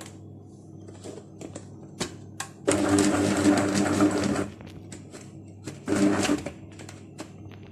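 Moulinex electric grinder running in two pulses, grinding steamed dried figs and garlic: a few clicks, then a burst of about two seconds, and a shorter burst later on.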